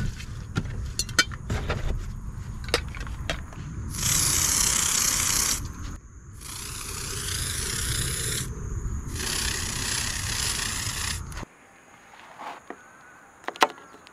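Aerosol can of mosquito-killing insecticide sprayed in three long hisses of about two seconds each, the first starting about four seconds in. Scattered clicks and rustles of handling come before the spraying.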